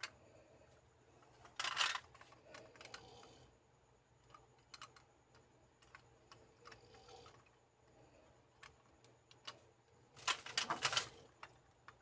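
Plastic Kyutama capsule toys being handled: light plastic clicks and clatter, with two louder clusters of rapid clicking, about two seconds in and near the end.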